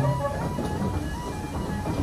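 Level crossing warning alarm sounding a repeating, stepping two-tone warble as the train rolls past, over the low rumble of the carriages running on the rails.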